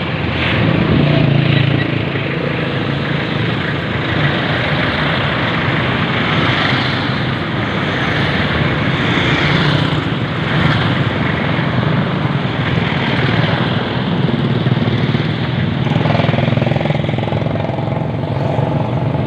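Street traffic: motorcycle and motorized tricycle engines running and passing close by, a steady engine drone with road noise.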